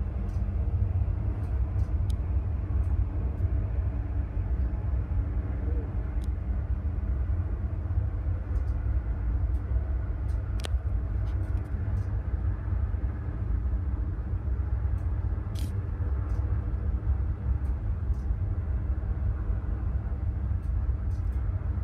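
Distant search-and-rescue helicopter hovering: a steady low rumble with a faint hum above it.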